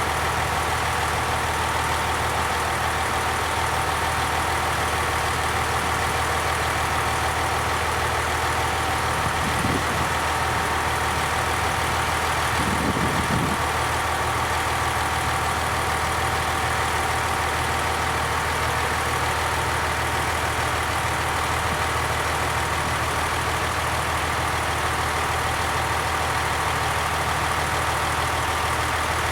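Diesel railcar engine running with a steady, unchanging drone.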